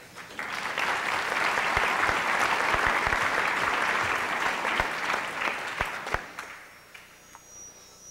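Audience applauding: the clapping starts about half a second in, holds steady, then dies away by about seven seconds.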